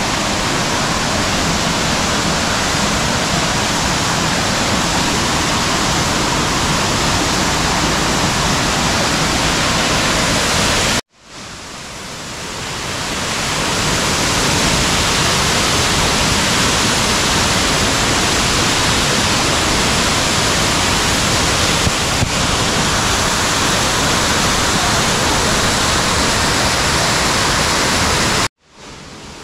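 Waterfall rushing, a loud steady roar of falling water. It cuts out abruptly about eleven seconds in, fades back up over a few seconds, and cuts out again near the end.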